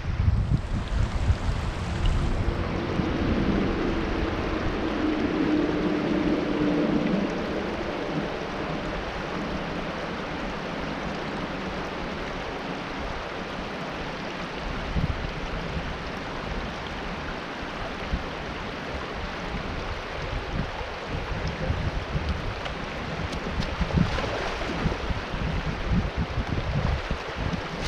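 Creek water flowing and rippling steadily, with low rumbling buffets on the microphone in the first seconds and again near the end.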